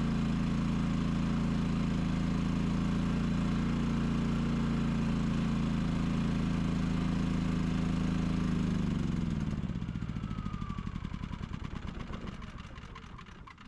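Firman WH3200ie inverter generator running steadily under load. About eight and a half seconds in its engine runs out of fuel: the pitch falls, it sputters through slowing firing pulses and fades to a stop.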